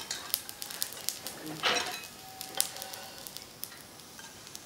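Metal spatula scraping and tapping in a dark frying pan as a cooked dosa is lifted out: a few sharp clicks and a longer scrape about a second and a half in, over light sizzling.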